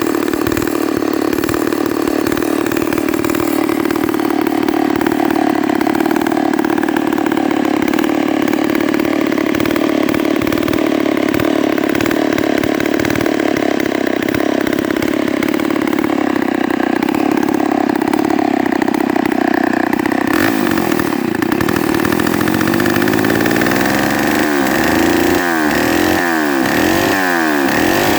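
1962 Homelite 770-D two-stroke chainsaw engine idling, its carburettor tuned a little rich so it runs choky and smoky. The engine note holds steady for about twenty seconds, then its pitch swings up and down repeatedly near the end.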